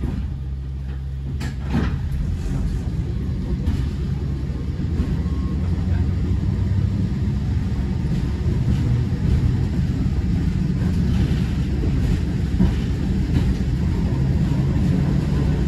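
Tram with a steady low hum at first, then a knock about a second and a half in, then the low rumble of the tram running along the track, slowly growing louder as it picks up speed.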